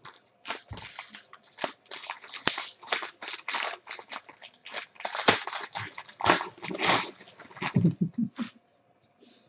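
Plastic wrapper of a trading-card pack being torn open and crinkled by hand, a dense run of irregular crackles that stops about a second before the end.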